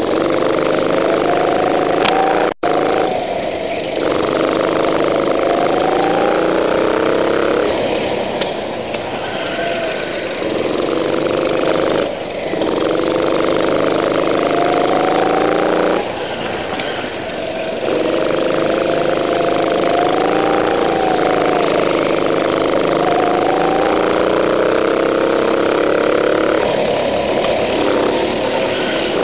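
Go-kart engine at full throttle, heard from on board the kart. Its pitch climbs as the kart accelerates and falls back several times as the throttle is lifted.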